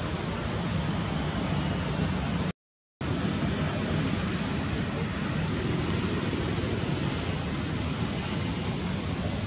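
Steady rushing outdoor background noise with a low rumble. It cuts out completely for about half a second, roughly two and a half seconds in.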